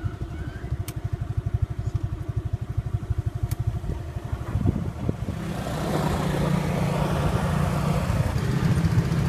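A small motorbike engine idling with a rapid, even putter. About five seconds in it runs steadier and louder under way, with rushing wind over it.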